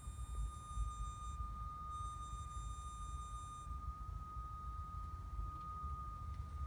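Steady high-pitched electrical hum from the engine bay of a 2015 Acura TLX 2.4 just after it has been shut off, the engine itself not running. Fainter, higher tones above it cut out twice, over a low rumble.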